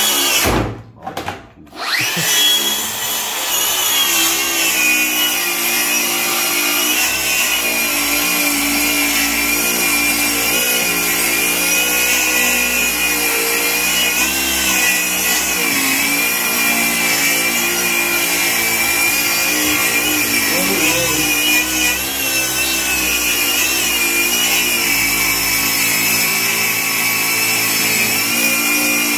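Makita SP001G 40V XGT brushless plunge-cut circular saw with a 165 mm blade, ripping lengthwise along a 45 mm thick timber on its guide rail. After a brief quiet moment about a second in, the saw runs steadily through the long cut, its whine wavering slightly in pitch under load.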